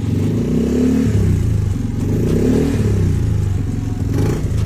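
Yamaha Mio Gear scooter's single-cylinder fuel-injected engine idling and being revved twice with quick throttle blips, the pitch rising and falling back each time. It picks up cleanly without sputtering: the throttle response is normal again after the throttle body was cleaned.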